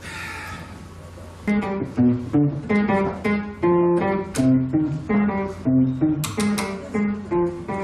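Solo acoustic guitar playing a picked single-note melody, about three notes a second, starting about a second and a half in.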